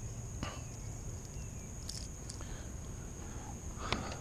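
A few faint clicks and knocks of a fishing lure and gear being handled in a small boat, the loudest a knock near the end, over a steady high-pitched whine.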